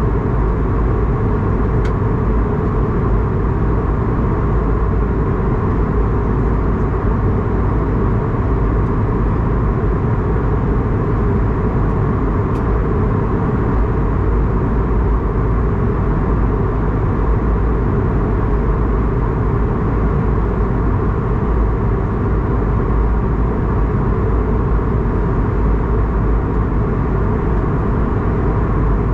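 Steady cabin noise inside an Airbus A220-300 in flight: the drone of its Pratt & Whitney PW1500G geared turbofans mixed with the rush of air along the fuselage, unchanging throughout.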